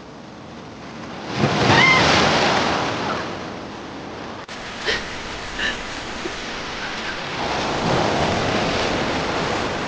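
Sea water surging and splashing in two loud swells, the first about a second and a half in, the second near the end, with a few short splashes between.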